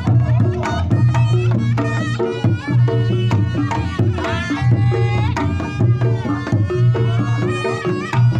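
Reog Ponorogo music: hand-played kendang drum strokes under a wavering, gliding slompret (shawm) melody, with a steady low ringing tone beneath.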